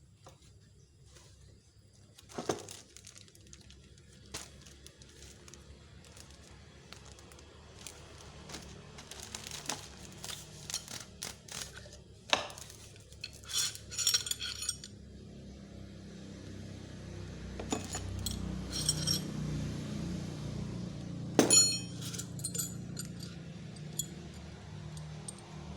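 Handling of a drill and its accessories: scattered clicks and knocks of hard plastic and metal parts, with short metallic clinking rattles, the loudest about two-thirds of the way through.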